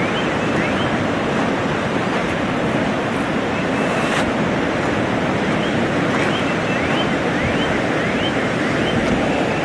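Steady rushing of a river in flood, fast brown water running over the land. Short high rising chirps repeat faintly over it now and then.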